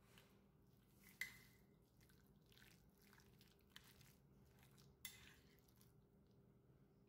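Near silence: faint steady room hum with a few soft clicks, the clearest about a second in and another about five seconds in.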